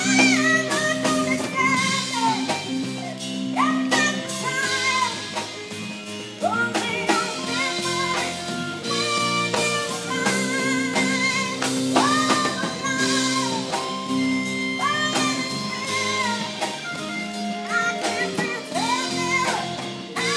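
Live band: a woman singing into a microphone over electric guitar and a drum kit, her voice swooping up into held notes every few seconds.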